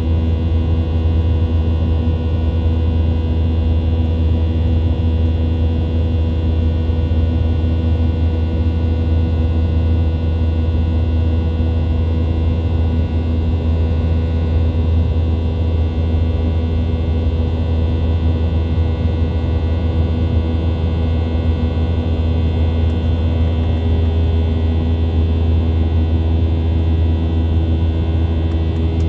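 Steady cabin noise of a Boeing 737-800 climbing after takeoff, heard from a window seat beside the engine: a deep, even rumble with a high whine from its CFM56-7B turbofan engines.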